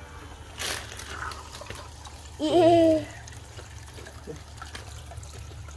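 Aquarium water trickling over a steady low hum, with a brief rush of water about half a second in. A short, loud voiced exclamation about halfway through.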